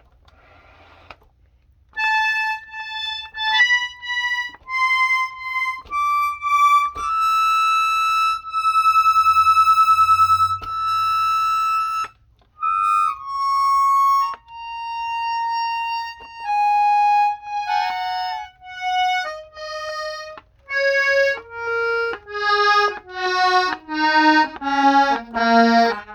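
Hohner Tango II piano accordion's treble reeds sounding one key at a time: single held notes that climb in pitch, then step down the keyboard one after another to low notes near the end.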